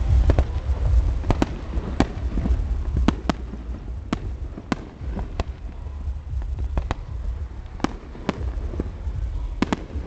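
Fireworks going off: a string of sharp cracks and bangs at uneven intervals, one or two a second, over a steady low rumble.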